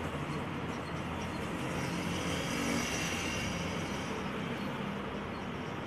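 Background road traffic: a vehicle passes, swelling and fading about two to four seconds in, over a steady low hum.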